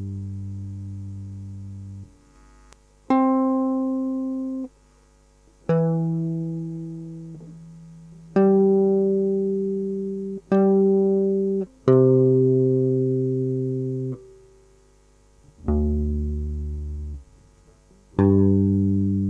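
Guitar played slowly for a sungura lesson: single plucked notes, about seven, each left to ring and fade for one to two seconds and then damped, with short silent gaps between them. One lower note comes about two thirds of the way through.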